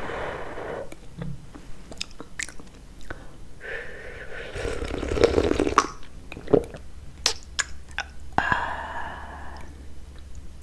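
Tea slurped from a saucer, held close to the microphone: two long sips, with sharp mouth clicks and swallows between them.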